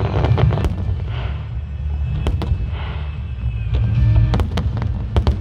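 Fireworks shells bursting overhead in a string of sharp bangs at irregular intervals, some in quick pairs, over a steady low rumble and music.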